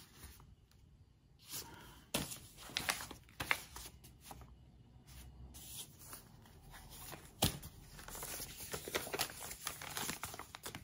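Paper sewing pattern envelopes rustling and crinkling as they are handled and swapped, with scattered crackles and one sharp click about seven and a half seconds in.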